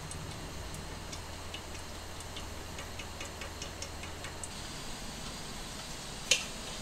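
Cooking oil poured from a plastic bottle into an aluminium pot, with faint scattered ticks and drips as the stream falls in. A single sharp click near the end.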